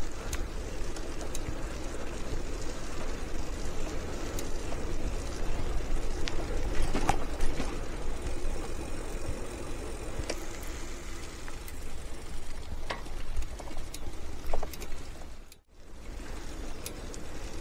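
Riding noise from a pedelec, picked up by an action camera's external microphone: tyres rolling on a paved path, with wind and scattered small clicks and rattles. The sound cuts out briefly about two seconds before the end.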